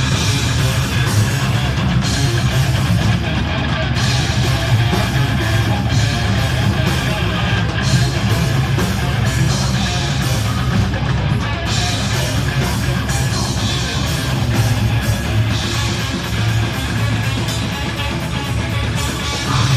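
Heavy metal band playing live, recorded on a mobile phone: loud, dense electric guitars over pounding drums and a heavy low end.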